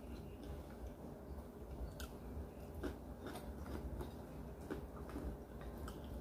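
A person chewing a mouthful of fried stinky tofu with the mouth closed, with a handful of small wet clicks spread through, over a low steady hum.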